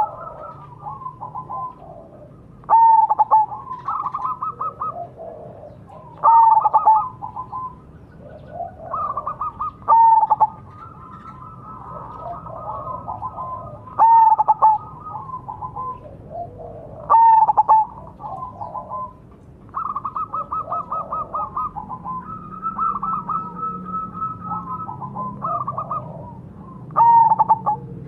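Zebra dove (perkutut) cooing: repeated phrases of quick staccato coo notes, a loud phrase every three to four seconds with softer cooing filling the gaps between.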